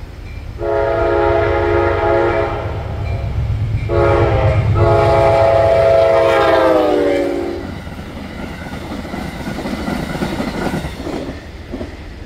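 Amtrak passenger train led by GE P42DC locomotive 130 passing at speed, sounding its multi-tone horn in a long blast, a short one, then a long one that drops in pitch as the locomotive goes by. Then comes the clatter of the passenger cars' wheels over the rail joints, fading away near the end.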